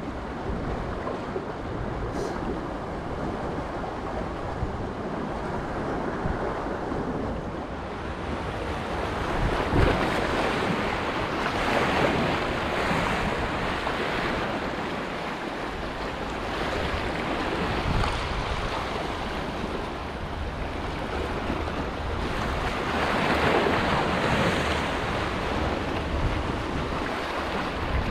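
Sea waves washing in and breaking against shore rocks, surging louder every few seconds, with wind on the microphone.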